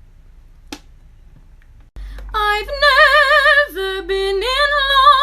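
Quiet room hum with a single click under a second in. About two seconds in, a woman starts singing high, held notes with a wide vibrato.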